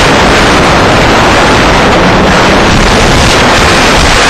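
Wind blasting over a helmet-mounted microphone on a snowmobile moving at speed, with the snowmobile's engine running underneath. Very loud and steady.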